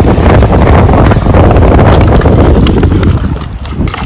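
Wind buffeting the microphone on an open beach, loud, easing off about three seconds in.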